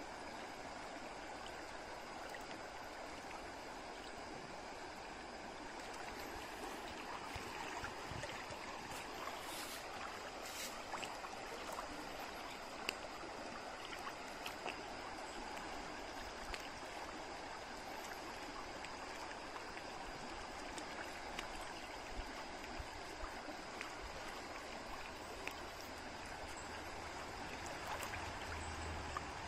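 Shallow stream flowing: a steady, even rush of running water, with a few faint clicks.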